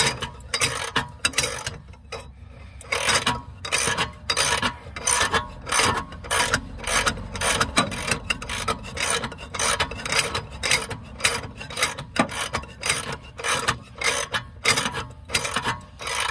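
Wrench working the nut along the threaded rod of a homemade all-thread bushing press, a quick run of short metal scraping clicks as the press draws a suspension bushing out.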